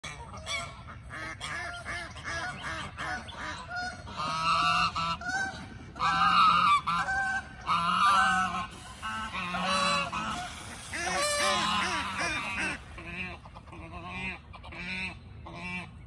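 A flock of Canada geese honking over and over, many calls overlapping, busiest and loudest in the middle.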